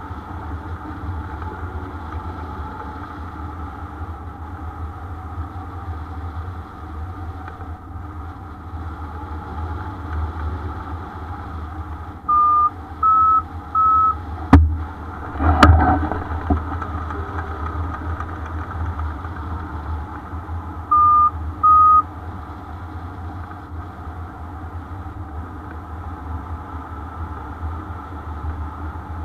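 Wind rushing over the microphone of a hang glider in flight, with a steady low buffeting rumble. A variometer beeps three times, each beep slightly higher, a little before the middle, and twice more later on; two sharp knocks come in between, the second the loudest.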